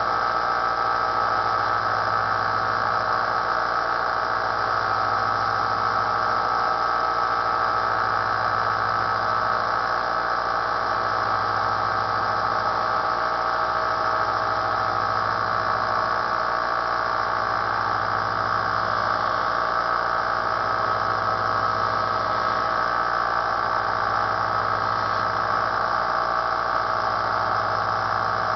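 Small bench belt sander running steadily while a knife is sharpened on it, with a low hum that swells and fades about every two seconds.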